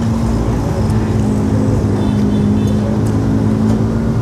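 Road traffic, with a motor vehicle's engine running steadily close by as a low drone holding one pitch.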